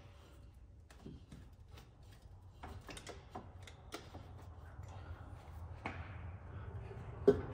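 Scattered faint clicks and taps of hands working at a stuck spin-on oil filter from under a car, with one sharper knock near the end, over a low steady hum.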